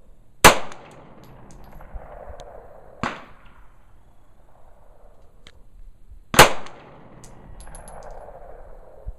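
SIG Sauer P226 9mm pistol firing three single shots a few seconds apart, each report followed by a short fading echo; the second shot is quieter than the other two.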